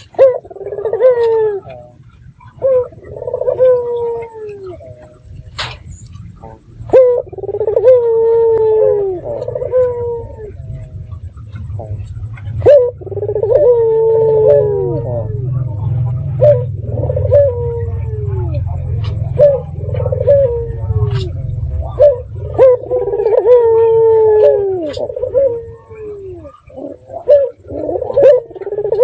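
A puter (collared dove) cooing over and over in the rhythmic phrases of a bird in full call, one phrase every second or two, each sliding down in pitch at its end. A few sharp clicks fall between the phrases, and a low rumble runs underneath the middle part.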